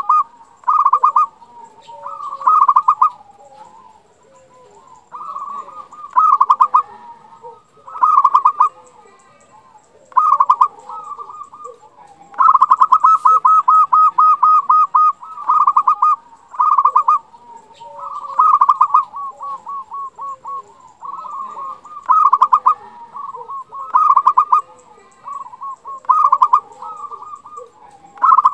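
Zebra dove (perkutut) singing: bursts of rapid staccato cooing notes repeated every second or two. About twelve seconds in comes one longer rolling run.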